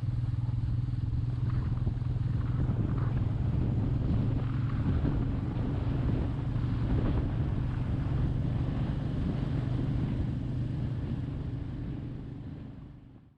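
Royal Enfield Meteor 350's single-cylinder engine running at a steady speed with wind on the microphone, fading out near the end.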